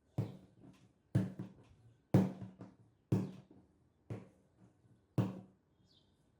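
Repeated dull thuds on a kitchen work surface, about one a second, each trailed by two or three lighter knocks.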